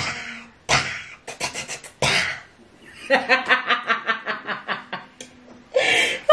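A woman laughing hard. Three sharp breathy bursts of laughter come in the first two seconds, then a quick run of 'ha-ha-ha' pulses, about six a second, for roughly two seconds, and another breathy burst near the end.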